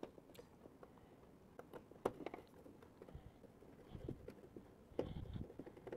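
Faint clicks and dull knocks of a hand screwdriver driving the mounting screws into a laser power supply's metal tabs. There is a sharper tick about two seconds in and a cluster of low bumps near the end.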